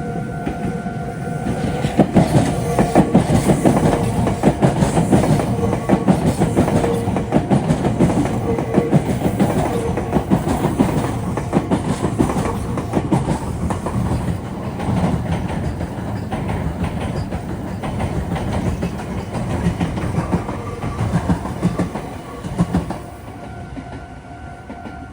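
Meitetsu electric train passing close by, its wheels clattering rapidly over junction points and rail joints for about twenty seconds before fading near the end. A level-crossing warning bell rings steadily, heard plainly at the start and again as the train fades.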